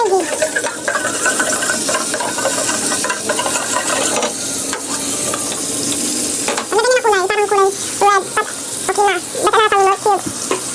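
Gravy being stirred in a pan on the stove, the utensil scraping the pan bottom, over a steady sizzle as the gravy cooks and thickens.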